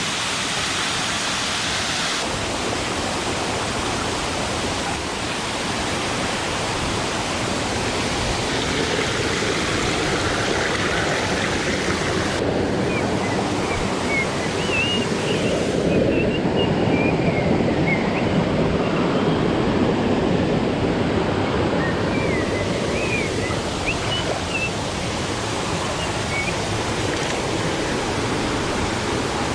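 Waterfall: water rushing and splashing down over rocks in a steady, full roar of noise, its tone shifting abruptly a few times.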